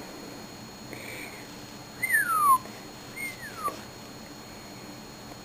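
Miligold macaw giving two whistle-like calls about two and three seconds in, each sliding down in pitch, after a fainter call about a second in.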